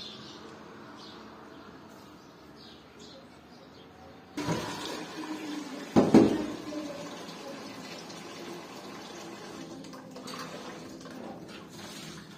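Water running and splashing, starting suddenly about four seconds in, with a loud knock about six seconds in.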